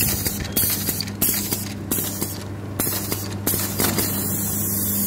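Charcoal briquette making machine running: a steady electric motor hum under a broad, continuous hiss.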